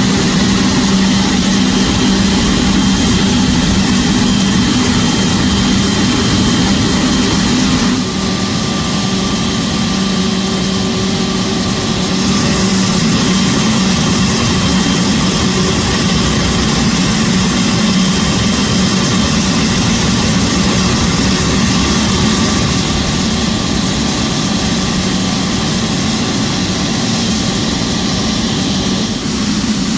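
Boeing 777's GE90 turbofan engine running: a loud, steady roar with a low hum and higher whining tones. About eight seconds in the level drops slightly and the tones shift.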